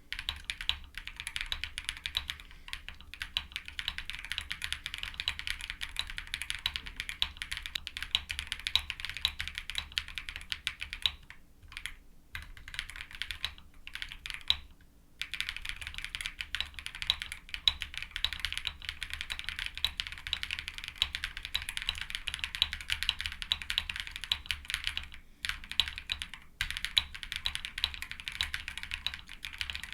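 Continuous fast typing on a Kezewa Enter67 mechanical keyboard, a gasket-mount board in an anodized aluminum case fitted with PH Studio Aaniya switches. The key strokes come densely, with a few brief pauses.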